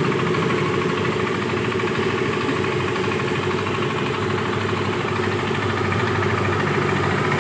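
Yamaha Mio i 125S scooter's single-cylinder engine running steadily with a knocking sound that a new cylinder and piston have not cured; the mechanic suspects the connecting rod.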